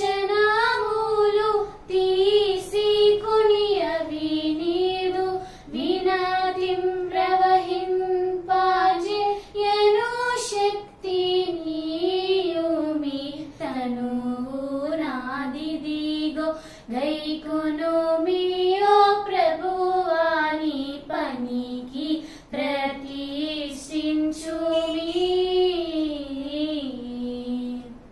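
Two young girls singing a Telugu Christian hymn (Andhra kraisthava kirthana) without instruments: one melodic line sung in phrases with short breath pauses.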